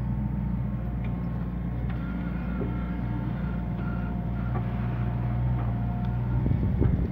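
Yanmar ViO57 mini excavator's four-cylinder diesel running steadily while the boom and bucket are worked, with a thin hydraulic whine coming in about two seconds in and fading out near the end, followed by a few knocks.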